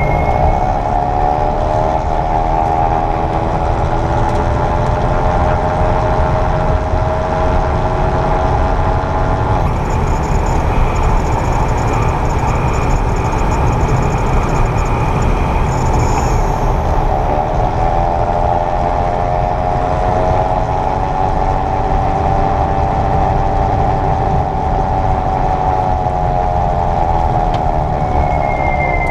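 Mechanical whirring whine from a 2022 Kia EV6's front drivetrain, heard from inside the car over road rumble: several tones that fall and rise in pitch with road speed. It cuts out abruptly about ten seconds in and comes back about eight seconds later. The owner hears this buzzing only around 28-30 mph in Eco and Normal mode, with the front motor not engaged.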